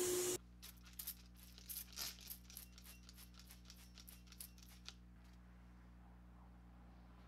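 A loud powder-coating spray hiss cuts off abruptly within the first half second. Then a run of faint, irregular crinkly clicks for about four seconds fades into quiet room tone with a low electrical hum.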